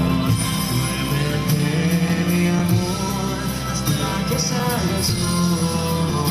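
Music with singing: a song with a steady bass line and a beat.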